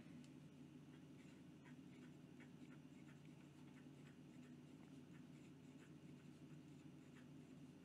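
Amazon Basics fountain pen's medium steel nib writing quickly on paper: faint, short scratches, one for each fast stroke, from a nib that writes very, very smooth.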